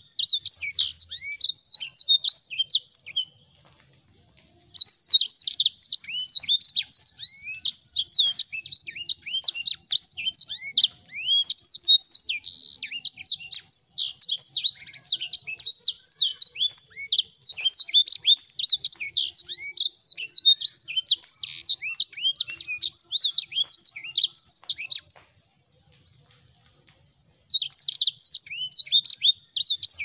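Caged sanger songbird singing a long, fast, twittering song of high chirps and trills. It breaks off twice, for a second or two each time: once a few seconds in and again near the end.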